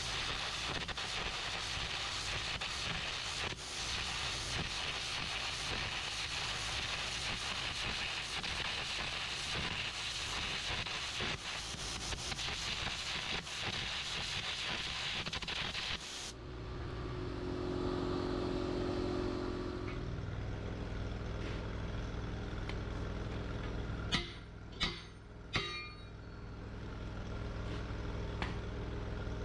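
Electric welding arc crackling steadily on the steel of a truck axle housing's spring perch, cutting off abruptly about sixteen seconds in. After that, a steady low engine hum, with three sharp knocks a few seconds before the end.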